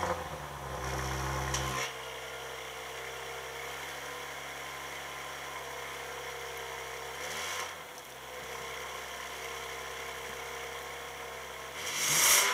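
2018 Audi RS5's 2.9 TFSI twin-turbo V6 heard at the tailpipe, just started: a brief high idle flare, then it settles to a steady idle. A short blip of the throttle comes about seven and a half seconds in, and a sharper, louder rev near the end.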